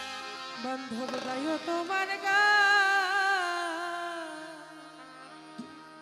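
A woman singing solo into a microphone, holding one long wavering note from about two seconds in over steady instrumental accompaniment, the music fading away as the song closes.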